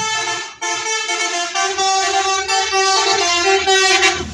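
A bus's Basuri 'telolet' multi-tone horn playing a quick melody of changing notes. A low engine rumble joins underneath about a second and a half in.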